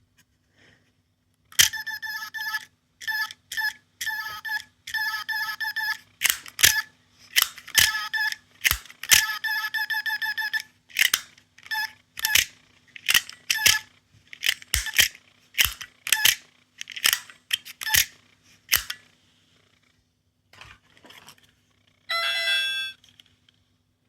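Capsule sound toy playing electronic clicking sound effects through its tiny speaker, single clicks and fast runs of clicks, much like a camera shutter, then a short warbling electronic tone near the end.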